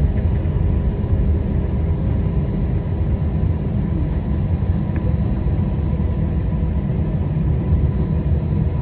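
Steady low rumble inside an airliner cabin as the plane taxis on the runway, with a faint steady tone running through it.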